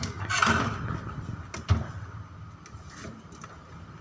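Handling noises while a microwave oven's high-voltage capacitor is being tested: a short scraping rustle, then one sharp knock a little under two seconds in, followed by a faint low background.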